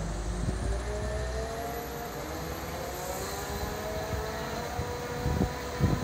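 Crane engine and hoist running under load while lifting a heavy prefabricated building module, with a low rumble and several slowly rising tones. Two sharp knocks near the end.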